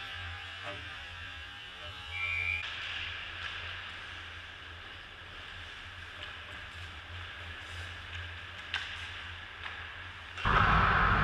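Hockey rink ambience with a steady low hum and faint, distant voices, and a brief high tone about two seconds in. Near the end a much louder, fuller sound starts suddenly.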